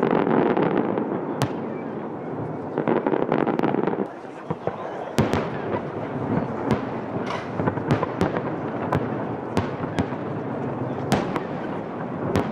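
Fireworks display: dense crackling at the start and again around three seconds in, then a string of separate sharp bangs as shells burst.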